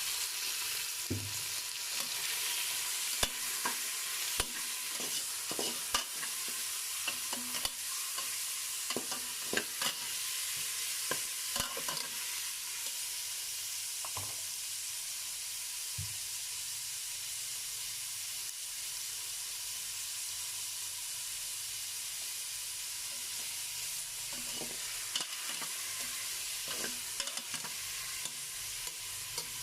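Beef searing in hot oil in a pressure cooker pot: a steady sizzle, with a stirring utensil knocking and scraping against the pot now and then, more often in the first half.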